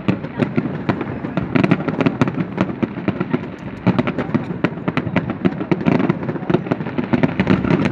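Fireworks display going off: a rapid, dense crackle of many sharp bangs and pops over a continuous rumble of bursting shells.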